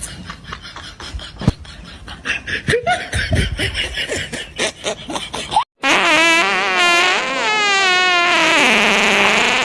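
Laughing and snickering, then after a sudden break a loud, pitched, quickly wavering sound that slides down in pitch about a second before the end.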